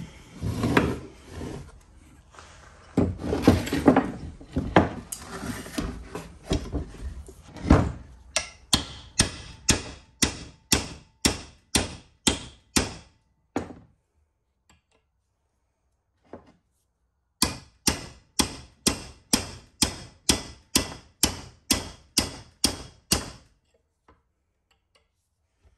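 Small hammer striking a steel punch to drive a seized steel shaft out of an ATV A-arm bushing. Irregular knocks and scraping come first, then steady strikes about two a second in two runs, with a pause of a few seconds between them.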